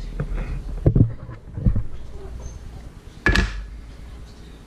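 A few knocks and bumps of handling on a kitchen counter, with a sharp clatter, the loudest, about three seconds in.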